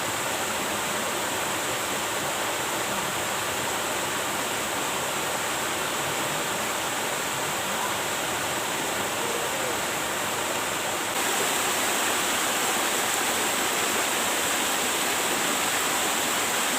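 Steady rushing of river water, an even hiss with no breaks, stepping up slightly in level about eleven seconds in.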